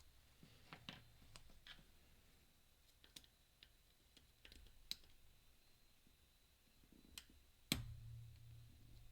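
Faint, scattered metal clicks of lock picks and a tensioner working inside the disc core of a Mindy flat pagoda padlock, with one sharper, louder click near the end.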